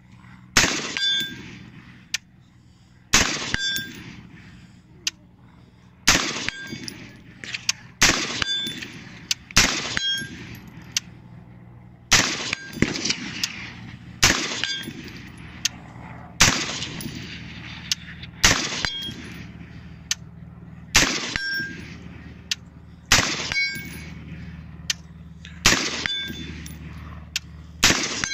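Colt Commando 5.56 mm carbine fired in slow single shots, about one every two seconds, some thirteen shots in all. Most shots are answered about half a second later by a short ringing metallic ping from a hit target downrange.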